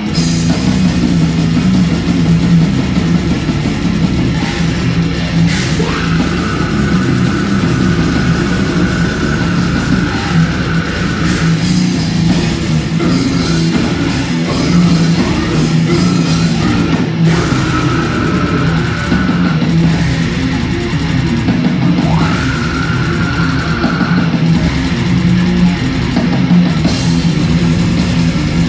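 Live heavy rock band playing loud on stage: distorted electric guitar and drum kit, with a high held guitar note that comes and goes several times.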